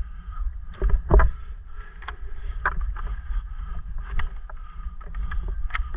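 Low steady rumble of movement and wind on a body-worn camera microphone. Over it come scattered single sharp snaps of airsoft gunfire, about seven spread irregularly across the few seconds.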